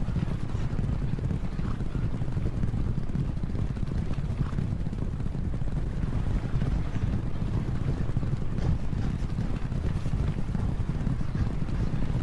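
A field of racehorses galloping together, their many hoofbeats merging into a steady low rumble.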